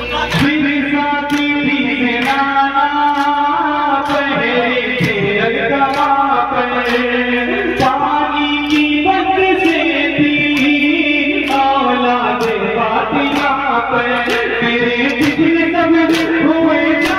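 A man's voice singing a noha, a Shia lament for Muharram, over the crowd's matam: many hands striking chests together in a steady beat of about one strike a second.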